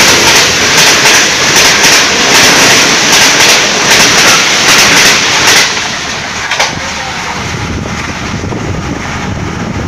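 Pakistan Railways Green Line Express coaches passing close at about 120 km/h: a loud rush of air and a rapid clatter of wheels over the rail joints. The clatter cuts off about six seconds in as the last coach goes by, leaving a quieter steady rumble with one more click.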